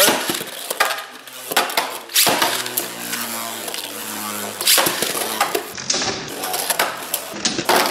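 Three Beyblade Burst spinning tops launched from a hand launcher into a plastic stadium. They then spin with a steady whirr and knock against each other, giving repeated sharp clacks.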